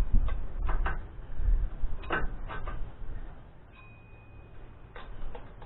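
A socket wrench working the nuts on a water pump pulley: a few separate metal clicks and clanks with low knocks in between, and a pause about three seconds in before one more click.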